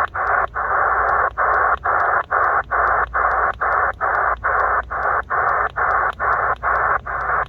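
C. Crane CC Skywave SSB shortwave receiver in AM mode, tuned on the 160-metre band to a noisy hiss-like signal. The signal is chopped into regular pulses by brief dropouts, a little over two a second.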